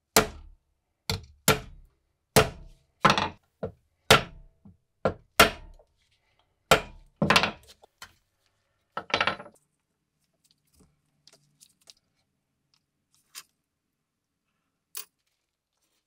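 Hammer tapping a pin punch to drive the pins out of a rusty pocket knife resting on a steel 1-2-3 block: about a dozen sharp metallic strikes at an uneven pace, each ringing briefly. They stop after about nine seconds, and a few faint ticks and two light clicks follow.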